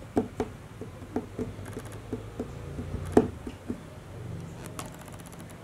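Newborn kittens suckling at their mother: soft, wet smacking clicks, a few a second, with one louder click about three seconds in.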